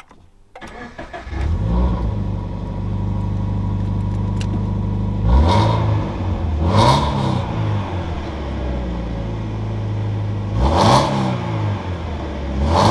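HKS-supercharged Toyota GT86's 2.0-litre flat-four started by push button: it cranks briefly, catches about half a second in, and settles to a steady idle. It is then blipped in four quick revs, each rising and falling back to idle, through its twin-muffler aftermarket exhaust.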